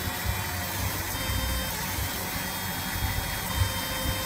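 Fiber laser marking machine running while it etches lettering into a stainless steel pistol slide: a steady machine hum and hiss, with a faint high-pitched whine that comes and goes several times.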